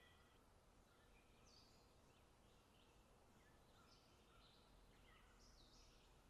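Near silence, with faint bird chirps of short high notes scattered throughout.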